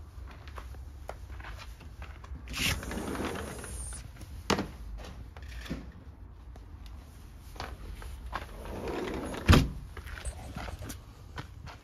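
Scuffs, scattered clicks and knocks from someone moving about on icy, snow-patched concrete, with a heavy thump about three-quarters of the way through.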